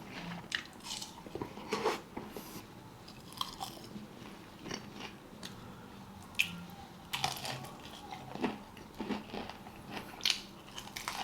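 A person biting and chewing food close to the microphone: irregular short crunches and wet mouth clicks, with louder bites about seven and ten seconds in.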